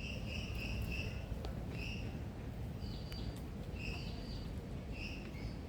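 Bird calls: short, clear notes repeated in quick runs of three or four, then singly every second or so, over a steady low background rumble.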